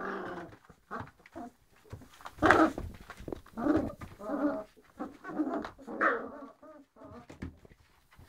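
Great Dane puppies about two weeks old whimpering and whining in a string of short pitched cries, the loudest about two and a half seconds in.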